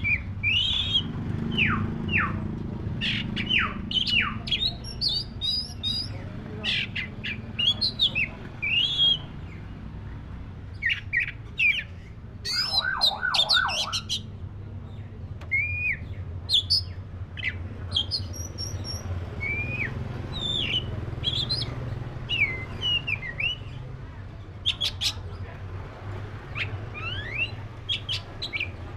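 Black-breasted oriental magpie-robin (kacer dada hitam) singing a varied run of short whistles, downslurred notes and chirps, with a quick burst of about five lower notes about halfway through, over a steady low hum.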